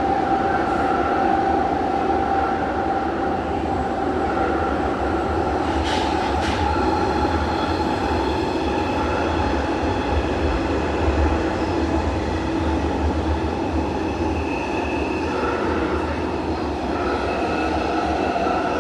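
A Jubilee line 1996 Tube Stock train running through a tunnel, heard from inside the carriage: a steady rumble with whining tones above it. A pair of sharp clacks comes about six seconds in.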